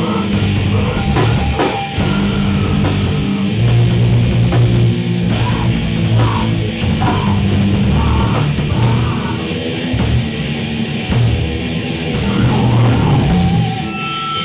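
Heavy metal band playing live: distorted electric guitars over a drum kit, loud and dense, dropping off near the end.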